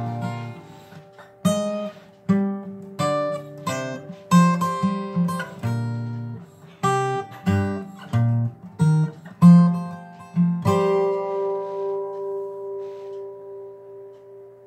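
Acoustic guitar played in separate struck chords at an uneven pace, then a last chord left to ring and slowly die away from about eleven seconds in.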